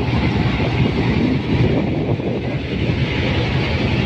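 Passenger train rolling past on its rails, led by a Pakistan Railways PHA-20 diesel-electric locomotive whose ALCO 12-251C4 engine is running under power: a loud, steady rumble.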